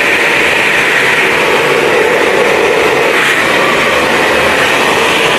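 Handheld hair dryer with a diffuser attachment running steadily, its fan motor and rushing air making a loud, even noise.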